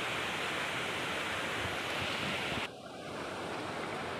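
Steady rushing noise of wind on the microphone over shallow water, which drops suddenly to a quieter hiss about two and a half seconds in.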